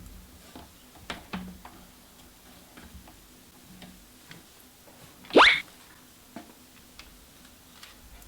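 Scattered light clicks, two of them stronger about a second in, and about five seconds in one short sweep rising quickly from low to high pitch, the loudest sound.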